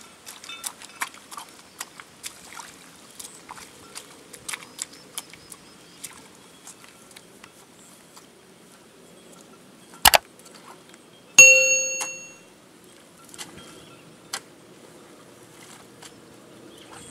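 A steel hoe working the muddy bank of a rice paddy: small wet clicks and squelches, then a loud knock about ten seconds in, followed by a bright metallic ring that dies away over about a second, like a bell.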